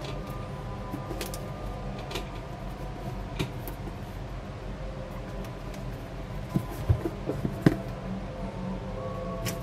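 Cardboard product box being handled and turned over in the hands, with a few light taps and knocks a little past halfway, over a steady background hum.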